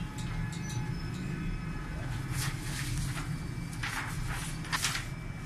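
A large sheet of paper rustling as it is handled, three short rustles a little over halfway through, over a steady low hum.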